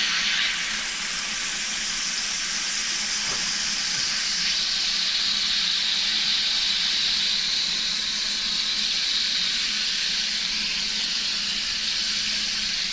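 Soy-marinated steak strips frying in a hot pan with a little fat, a steady sizzle with a faint low hum underneath.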